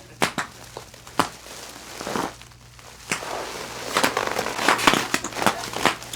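Bubble wrap crinkling and crackling as a body wrapped in it shifts and is pulled up, with sharp snaps a quarter second and a second in and a busier patch of crackling from about four seconds in.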